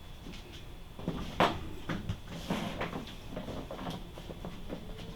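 Handling noise: a string of knocks, clicks and scrapes as something is picked up and moved about, the sharpest knock about a second and a half in.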